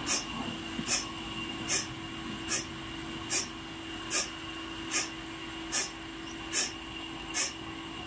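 Horizontal band sawmill running between cuts, not sawing. A steady hum carries a short, high hiss that repeats evenly a little faster than once a second.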